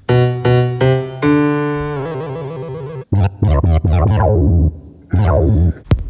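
Synthesizer notes played by hand movements through SOMI-1 motion sensors and the smartphone app's sound preset. Four stepped notes lead into a held chord that fades away. Then comes a run of short, quickly struck notes, and a last short phrase near the end.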